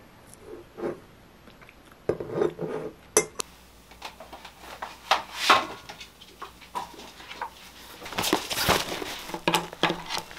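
Light clinks and knocks of a spoon and dishes on a table. After a cut, books are pulled from a shelf with sharp clicks and knocks, and a rustle rises near the end as they go into a fleece tote bag.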